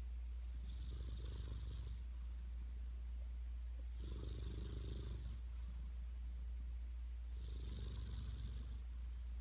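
Persian cat snoring in its sleep: three slow rasping breaths, each about a second and a half long, roughly every three and a half seconds.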